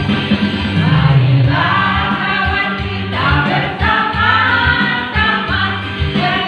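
Music: a song with a guitar and bass accompaniment, and several voices singing together coming in about one and a half seconds in.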